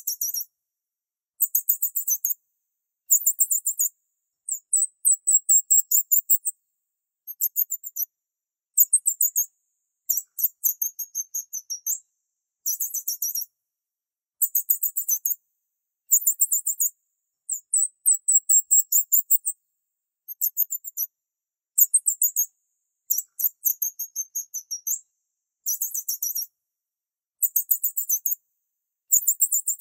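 Very high-pitched chirping in bursts of rapid pulses, each burst about a second long and repeated every second or two, with nothing low in the sound.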